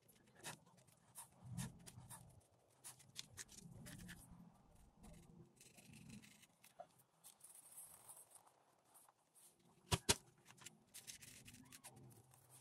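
Faint scraping and light tapping as a small plastic spoon spreads coloured sand over glued paper, with two sharp taps in quick succession about ten seconds in.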